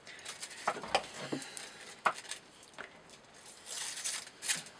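Thin cigarette paper being handled and sliced with a sharp knife blade: soft rustles and light taps, then a short hissing cut through the paper near the end.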